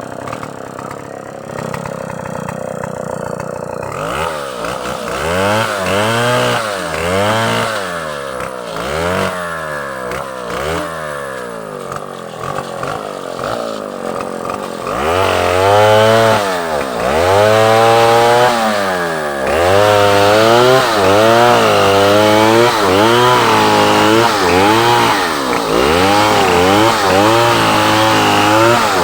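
Chainsaw cutting into large logs, its engine pitch rising and falling again and again as the throttle is worked and the chain bogs in the wood. It comes in strongly about four seconds in and grows louder about halfway through.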